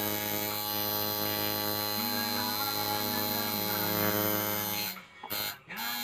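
Electric tattoo machine buzzing steadily with a low hum, cutting out briefly twice near the end.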